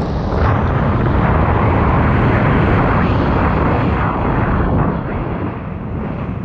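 Sea-Doo RXP-X 300's supercharged Rotax three-cylinder engine running hard with rushing water spray and wind, then easing off about five seconds in as the ski slows.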